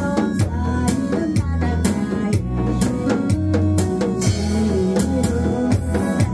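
Trot music with a steady bass beat and melody, with sharp drum strikes on a janggu drum set played along in time.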